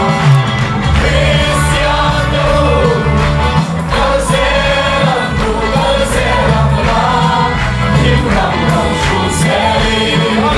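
Voices singing a Christian worship song together over band music with a heavy bass line.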